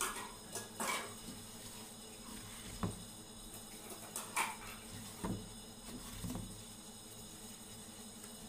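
Handling noise from a small wooden box on a tabletop: a few brief taps, knocks and short scrapes spread across several seconds, over a steady faint hum.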